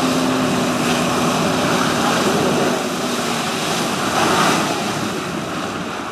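Water-jet pack in flight: the personal watercraft's engine runs hard to pump water up the hose, and the twin water jets blast down onto the lake with a heavy rushing spray. A steady hum sits under it for the first few seconds. The noise eases off near the end as the pilot drops into the water.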